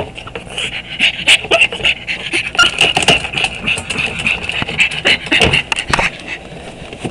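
Dog panting inside a wire-door pet carrier, with many quick, irregular clicks and rattles.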